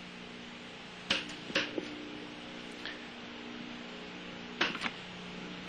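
A handful of sharp clicks and knocks from hands working, in two groups, over a steady electrical hum.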